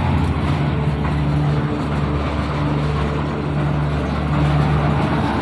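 An engine running steadily at a constant speed, with the pitch of its hum shifting slightly right at the start and again near the end.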